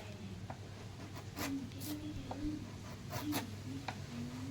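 Short scratchy strokes of a tool on wood, about one to two a second, over a steady low hum, with faint voices behind.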